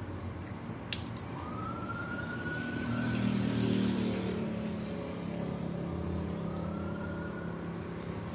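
Distant road traffic, with a vehicle passing that peaks about three to four seconds in and a faint siren rising in pitch twice. A few small clicks about a second in.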